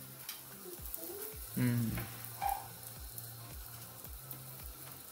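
Aloo paratha sizzling as it fries in a flat pan over a gas flame, with light clicks of metal tongs handling it.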